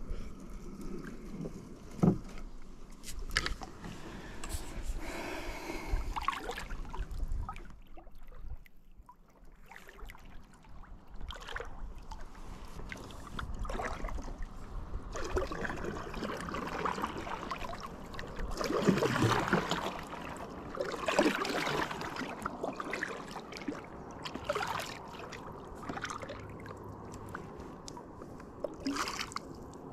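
Water splashing and sloshing around a kayak, with scattered knocks, busiest a little past halfway through.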